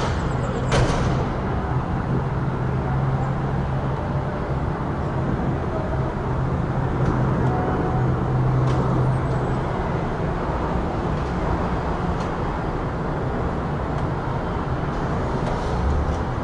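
Busy city street traffic: a steady rush of passing vehicles, with an engine's low hum running through the first half and two sharp knocks in the first second.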